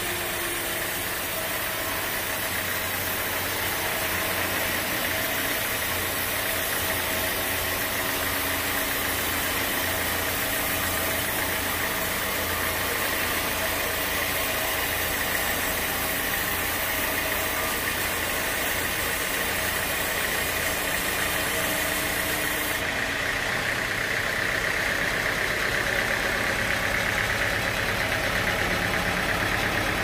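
Band sawmill running steadily, its blade sawing lengthwise through a large teak log, a continuous mechanical drone of the machine with the noise of the cut.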